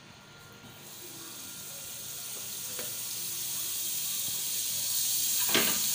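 Butter sizzling as it melts in a hot frying pan, the sizzle starting faintly and growing steadily louder. A short knock near the end.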